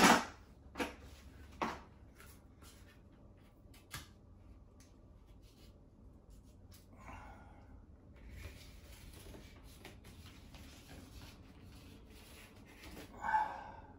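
Faint handling sounds of a thin LED wafer can light being pushed up into its ceiling hole: light rubbing and scraping with a few clicks. A sharp knock opens it, followed by two lighter clicks within the first two seconds.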